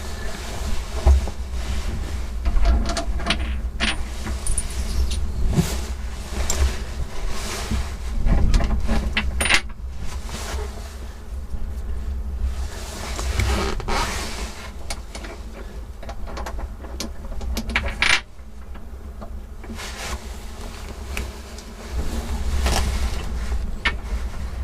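Small stainless steel washers and screws clinking and tapping as they are handled and fitted onto bolts, with scattered metallic ticks and fumbling, rustling handling noise.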